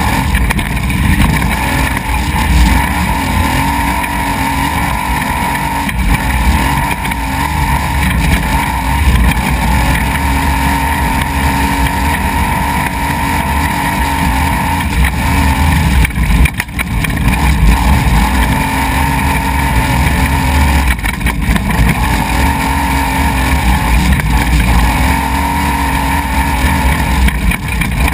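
Off-road desert race truck driven hard over a rocky dirt track, heard from an onboard camera: a loud, steady mix of engine and road noise that eases off briefly about halfway through.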